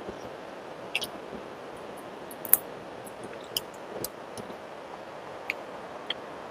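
A person eating a rice meal: scattered sharp clicks and clinks, as of dishes and eating, over a steady background hiss, the loudest click about two and a half seconds in.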